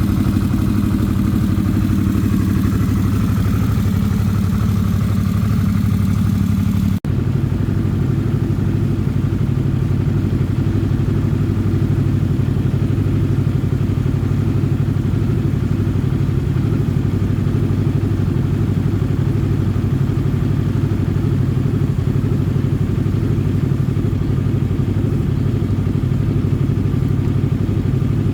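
Harley-Davidson Sportster S engine running steadily. About seven seconds in there is a brief drop, after which the note is steadier, with less hiss.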